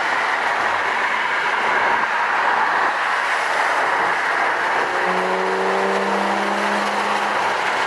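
Porsche 991 GT3 RS heard from inside the cabin at a steady pace, with a constant rush of road and tyre noise. About five seconds in, the naturally aspirated flat-six's low hum comes through, drifting slightly lower in pitch.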